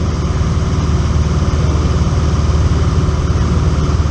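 Single-engine piston airplane's engine and propeller running steadily in flight, heard from inside the cabin as an even, loud, low pulsing hum.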